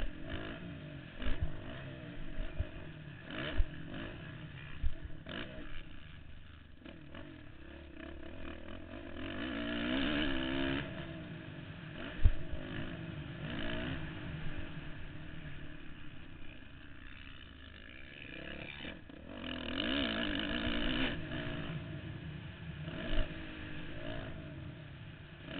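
Motocross dirt bike engine revving up and down through a lap, with two long pulls about ten and twenty seconds in. Sharp knocks at several points.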